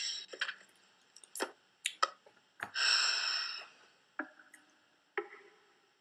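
Scattered clicks from typing on a laptop keyboard, a short breathy rush of noise about three seconds in, then a few ringing plinks about a second apart.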